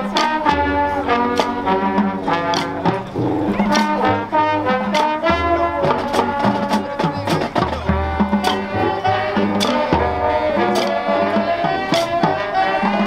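Marching band playing a Latin-styled field show: brass horns on sustained chords and melody, with sharp drum hits marking the beat over a low bass line.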